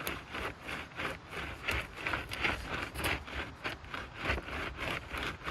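Dirt being scraped and dug out beneath a timber beam in quick, even strokes, about three a second, to seat the beam down into the ground.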